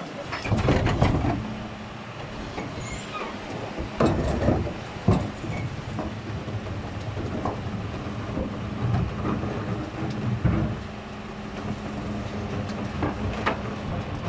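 Rear-loading refuse truck's diesel engine and hydraulics running steadily while the bin lift and packing mechanism work after tipping two wheelie bins. Sharp metal clanks and knocks come several times, the loudest about four and five seconds in.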